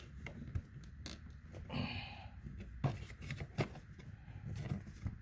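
A plastic door-panel trim piece being worked into its clips by hand: rubbing and scraping with several sharp clicks and knocks, and a short scrape about two seconds in.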